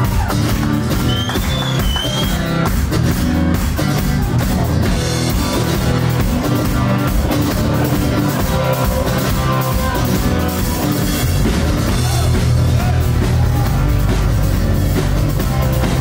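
Live rock band playing through a club PA: drum kit, bass guitar, electric and acoustic guitars and keyboard, in a steady full mix.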